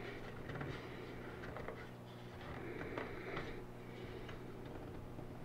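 Light scattered clicks and taps as glued wooden box pieces are handled and a one-handed Quick-Grip bar clamp is set and tightened on them, over a faint steady hum.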